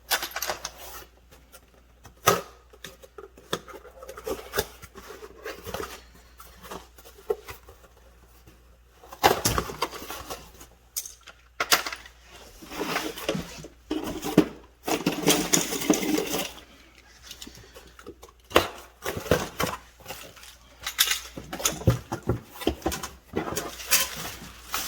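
Scattered clicks, taps and rustling from handling a replacement refrigerator control board and its packaging, with a longer stretch of rustling a little past the middle.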